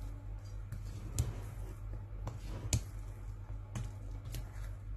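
Spatula stirring thick chocolate cake batter in a glass bowl, with a handful of irregular clicks and taps of the spatula against the glass.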